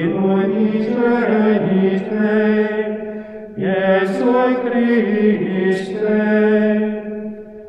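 Chant sung in long held notes as background music, one phrase ending about three and a half seconds in and the next starting at once, then fading away near the end.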